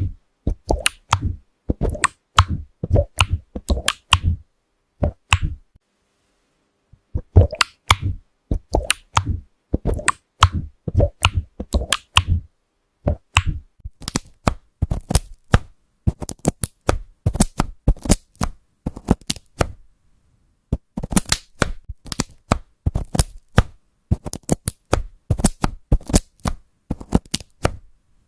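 Keys of a transparent mechanical keyboard being typed, each keystroke a short poppy clack, a few a second in uneven runs with brief pauses about six and twenty seconds in.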